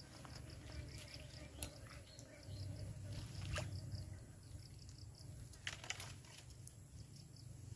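Insect chirping outdoors in a rapid, even pulse of high short chirps, about six a second, stopping and starting again. Underneath runs a low rumble, with a few sharp clicks.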